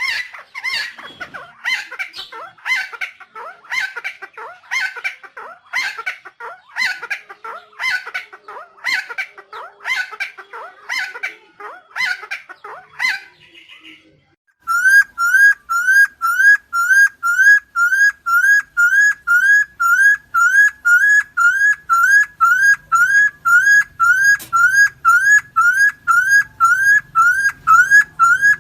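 Helmeted friarbird calls played as a bird-lure recording: harsh, rising calls repeated about one and a half times a second. About halfway through they cut off suddenly, and a fast, very regular series of rising whistled notes follows, about three a second.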